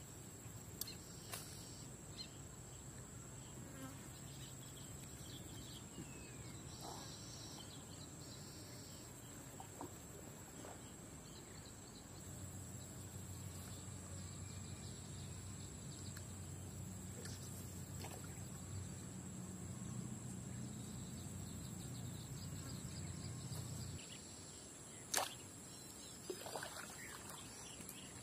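Insects droning in one steady high tone, with a few faint chirps. A low hum runs through the middle and cuts off suddenly, and a single sharp click near the end is the loudest sound.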